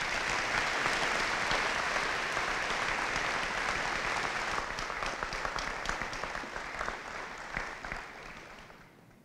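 A seated audience applauding, dense and steady, then dying away near the end.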